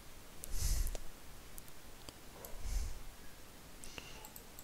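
Faint room tone with a few soft computer-mouse clicks and two breaths on the microphone, one about half a second in and one near the three-second mark.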